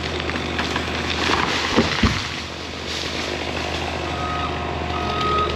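Heavy equipment engine running steadily, with two sharp knocks about two seconds in and a reversing alarm beeping near the end.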